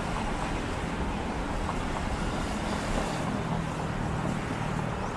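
Road traffic: a steady rush of passing vehicles, with an engine hum that grows stronger in the second half.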